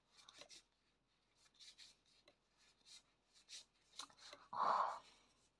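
Pokémon trading cards being flipped through and slid against one another in the hand: faint rubbing with soft scattered ticks, and a brief louder rustle a little before the end.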